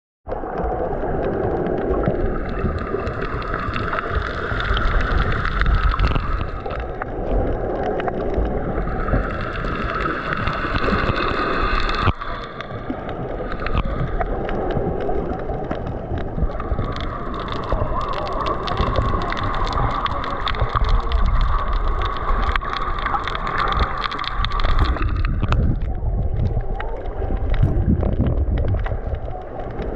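Muffled underwater noise picked up by a camera held just below the surface: water sloshing and rumbling against the housing, with a steady higher hum that comes and goes in stretches of several seconds.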